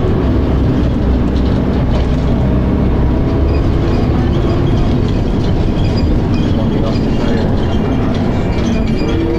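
Dennis Arrow double-decker bus running under way, heard from on board: a continuous engine and drivetrain drone with a steady pitch that starts to rise near the end.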